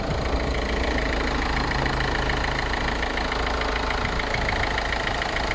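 Citroën C2 1.4 HDi four-cylinder diesel engine idling steadily, with a rapid, even ticking.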